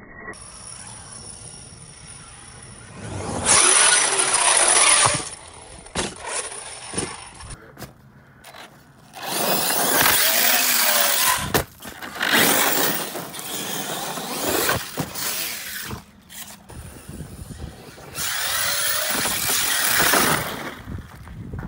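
Arrma Infraction RC car's electric motor whining through about four loud full-throttle runs, its pitch rising and falling, with the tyres churning loose dirt. There is quieter driving between the runs.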